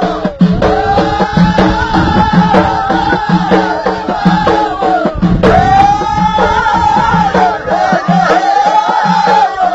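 Ahidous, the Amazigh folk music of the Middle Atlas: a chorus of voices singing in long arching phrases over a steady beat of bendir frame drums.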